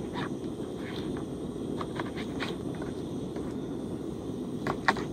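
Steady low roar of a gas canister camping stove burning under a pot of simmering rice, with faint light ticks and a few sharper knocks near the end from a knife cutting raw chicken on a plastic cutting board.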